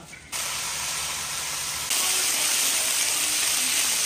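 Diced pork sizzling in hot oil in a wok as a metal ladle stirs it, the first frying step of pork stewed with vermicelli. The sizzle steps up louder about two seconds in.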